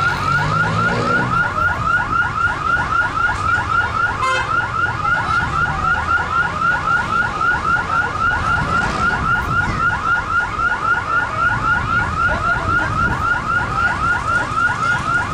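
Car alarm siren sounding a rapid, evenly repeating warble of about four sweeps a second, then cutting off abruptly near the end.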